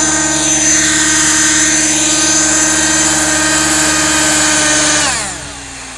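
Align T-Rex 600 Nitro RC helicopter's two-stroke glow engine running steadily with the rotor turning, then shut off about five seconds in: the engine note drops away sharply, leaving the rotor and gears spinning down with a fainter, slowly falling hum.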